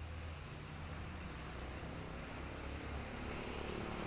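Outdoor ambience: a steady low rumble under an even hiss, with faint, high, rapidly repeated insect chirps through the first half.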